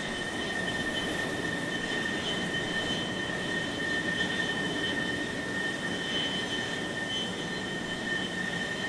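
Jet engine running at a steady pitch: a high whine and a rush of air, with a faint, very high whine rising higher over the first few seconds, as an engine spools up.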